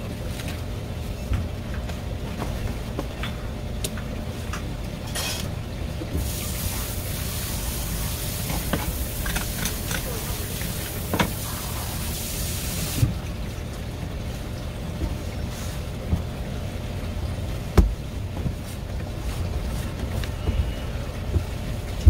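Handling on a plastic cutting board while a scaled black porgy is wiped and wrapped in paper towels: scattered light knocks and rustles over a steady low hum. A steady hiss runs for several seconds in the middle.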